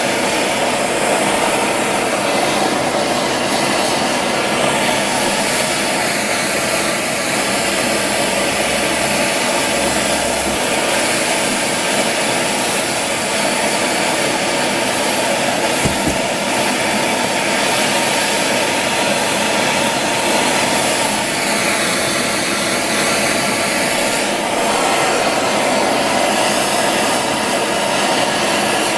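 MAP gas hand torch burning with a steady hiss, its flame heating a brass shutoff valve and copper pipe joint before soldering.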